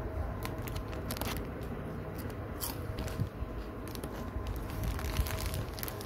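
Crackling and crunching of potato chips and their foil-lined Lay's packet being handled by fingers: a run of sharp, irregular crackles.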